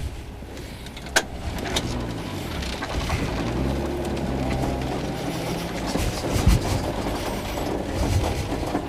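Rover 214 rally car's four-cylinder engine running steadily at low revs, heard from inside the car, with a sharp click about a second in and a few knocks a little past the middle.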